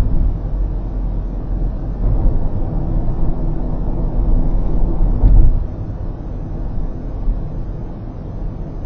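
Road noise heard inside a car cruising at highway speed: a steady low rumble of tyres and engine, with a louder low bump about five seconds in.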